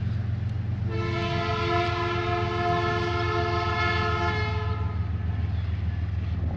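Train horn sounding one held chord of several tones for about four seconds, starting about a second in, over a steady low rumble of the passing train.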